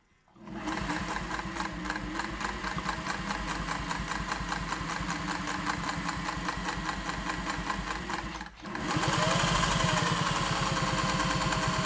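Singer 401A sewing machine running, stitching a straight stitch through eight layers of cotton muslin, with a steady, rapid rhythm of needle strokes. It starts about half a second in, pauses for a moment about eight and a half seconds in, then runs on louder.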